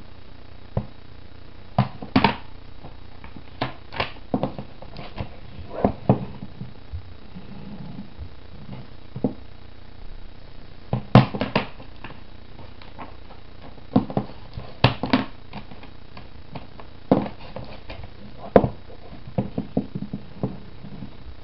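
A plastic DVD case and its packaging being handled: irregular sharp clicks and taps, some in quick clusters, over a steady faint hiss.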